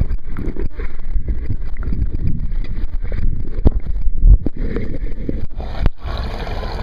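Hot tub water churning and splashing, heard through a waterproof camera's microphone held at and below the surface, muffled and rumbling, with frequent bumps and knocks from the camera being moved in the water.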